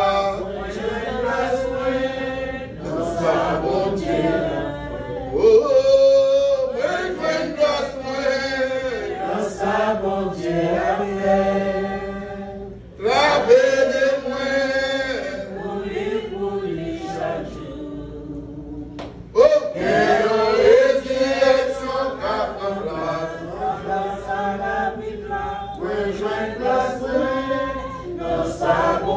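Church congregation singing a hymn together, many voices in chorus, with brief breaks between lines about 13 and 19 seconds in.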